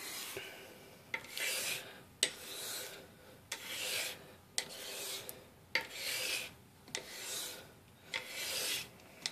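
Dovo straight razor's steel blade stroked back and forth on a wet whetstone: a rasping scrape with each pass, about one a second, with a sharp click between strokes. The blade is being honed to work out a rough edge.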